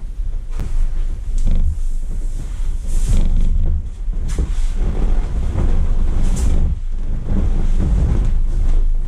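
Vinyl inflatable swim ring creaking and rubbing under someone's weight as it is ridden, in irregular squeaks over a heavy low rumble.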